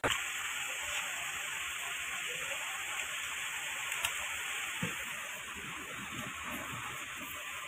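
Steady background hiss, with a few faint knocks as the plate pack of a lead-acid battery is gripped and lifted by hand, mostly in the second half.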